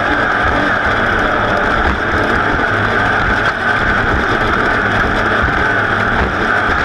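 Racing vehicle's engine running hard at a steady high pitch, mixed with wind noise rushing over the microphone.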